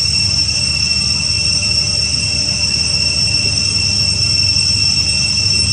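Steady insect drone: a constant high-pitched whine at two pitches, unbroken throughout, over a low steady rumble.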